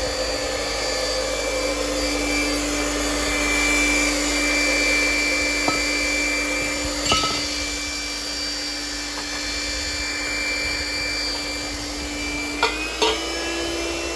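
BVA PU55 hydraulic pump running steadily while a hydraulic ram drives a steel push pier. It gives a constant machine hum that steps slightly higher in pitch near the end. A few sharp metallic clicks and knocks sound over it.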